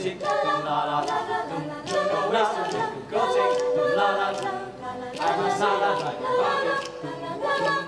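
Mixed-voice a cappella choir singing in harmony, with no instruments; one steady note is held for about two seconds from around three seconds in.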